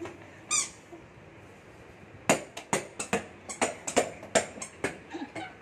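A short high squeak about half a second in, then a quick, irregular run of sharp hand claps, about five a second, lasting nearly three seconds.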